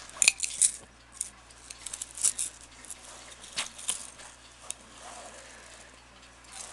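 Irregular metallic clinks and jingles of a pocket watch's chain being pulled and pawed about on a bed sheet, mixed with rustling of the fabric. The clinks are thickest in the first second, then come scattered and fewer.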